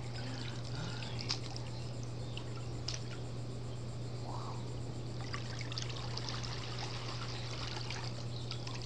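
Pool water trickling and lapping in small splashes as a baby is dipped in and out of it, over a steady low hum.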